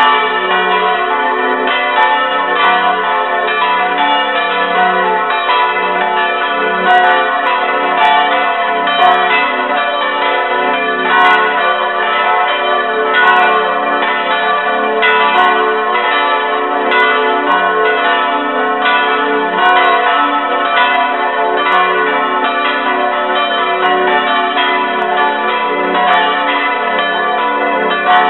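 Several bronze church bells swinging and ringing together in the belfry, close up. Their strikes overlap in an uneven, continuous peal.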